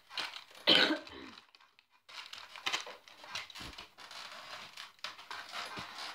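Wrapping paper being torn and crinkled by hurried hands, in short scattered crackles. A short, loud vocal burst comes about a second in.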